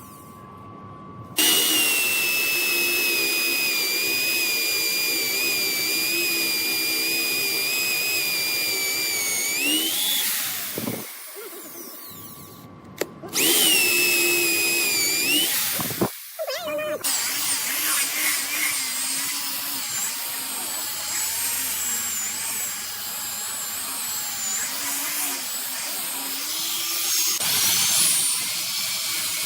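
Handheld electric power tool's motor running at high speed. It starts suddenly about a second and a half in, stops around ten seconds, runs again briefly, and then keeps running with a wavering pitch, as if working against the wood.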